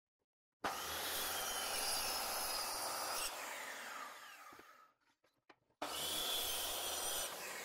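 Circular saw cutting a scarf bevel along plywood in a guide-rail jig, in two passes. Each pass starts abruptly about half a second and six seconds in and runs with a steady cutting noise. The first lasts about three seconds, the second less than two, and each ends with the motor winding down in a falling whine once the trigger is released.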